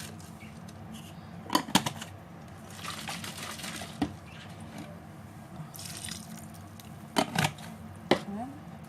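Vinegar being poured into a bowl of ground red pepper and garlic, two short stretches of pouring, with a few sharp clinks of utensils or containers.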